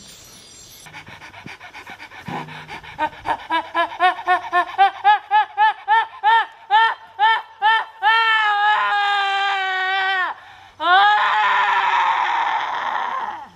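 A high voice giving short, repeated cries, each rising and falling in pitch, that come quicker and louder, then two long held cries, the second sliding slightly down.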